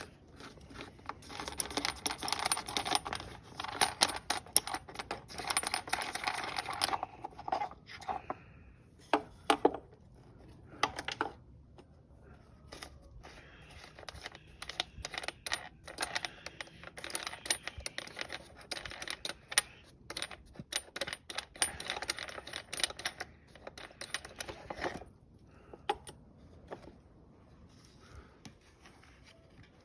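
Rapid metallic clicking and clinking of hand tools at work on a mower, in a long spell near the start and another through the middle.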